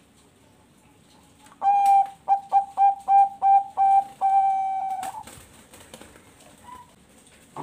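Zebra dove (Bangkok-bred perkutut) singing its cooing song: an opening note, a quick run of about eight short clipped coos, then a long held final coo that fades, about three and a half seconds in all.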